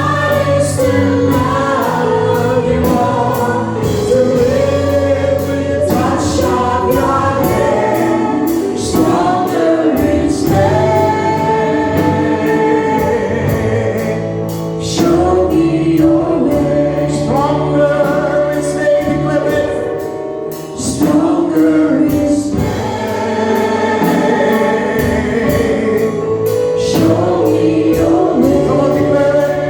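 Gospel worship song: a choir sings over a band with a steady beat and sustained bass notes.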